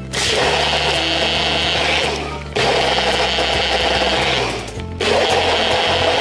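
Countertop blender motor running and blending liquid in three runs of about two seconds each, with short breaks between them.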